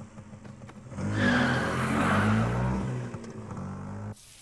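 Motorcycle engine revving, its pitch stepping up and down, starting about a second in and cutting off suddenly near the end.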